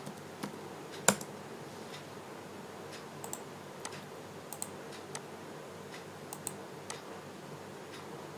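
Computer keyboard keys and a mouse clicking sporadically, about a dozen separate taps with one louder click about a second in, over a faint steady background hum.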